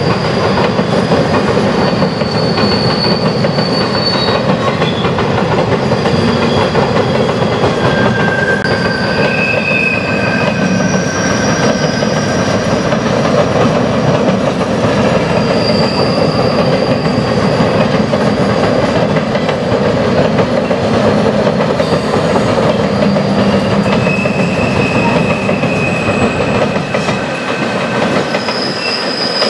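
Freight train tank cars rolling across a steel truss bridge: a steady, loud rumble of wheels on rail, with high-pitched wheel squeals that come and go every few seconds.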